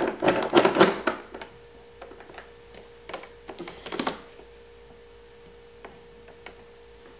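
Bar clamps being tightened on a glued-up wooden board: a cluster of clicks and knocks in the first second and another around three to four seconds in, with a faint steady hum underneath.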